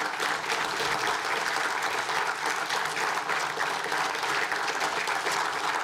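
Applause from a roomful of people clapping, dense and steady.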